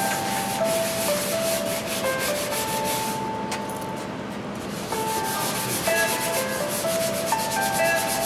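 Hand sanding of a steel cabinet's rusty painted top with a sanding block and 120-grit paper: scratchy back-and-forth strokes of abrasive on metal, in quick succession.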